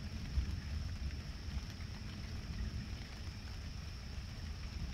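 Distant thunder rumbling low and continuously under a steady hiss, with no single sharp crack.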